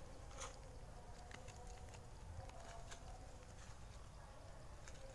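Faint outdoor background with scattered light clicks and taps and a faint, thin steady tone underneath.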